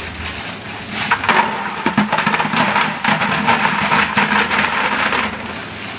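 Ice cubes poured from a plastic bag into a plastic bucket, a dense rattling clatter of cubes hitting the bucket and each other. It starts about a second in and stops near the end.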